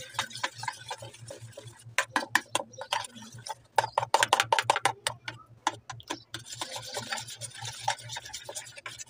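Yogurt and cornflour batter being stirred briskly in a stainless steel bowl, the utensil clicking and scraping against the metal in quick, irregular strokes.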